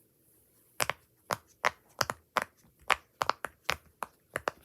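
Bubbles of a round silicone pop-it fidget toy being pressed in one after another, each giving a sharp click, about four a second, starting about a second in.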